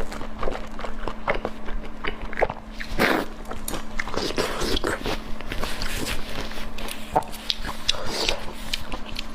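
Close-miked eating: a person biting and chewing food, with irregular short wet clicks and smacks of the mouth and a louder bite about three seconds in, over a faint steady hum.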